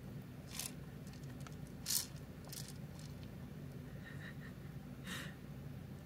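A few short scratchy rustles from a rabbit moving about and nosing at a hay-filled treat ball, the loudest about two seconds in, over a steady low hum.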